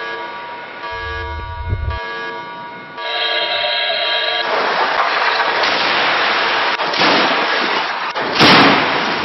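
Sustained, droning electronic tones, then from about three seconds a loud, dense rushing noise. About eight seconds in comes a loud crash, as the Range Rover Sport's front end hits the crash barrier.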